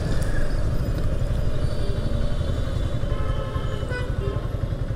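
Motorcycle running at steady road speed, the engine and road rumble mixed with wind on the rider's microphone. Faint steady tones come in near the end.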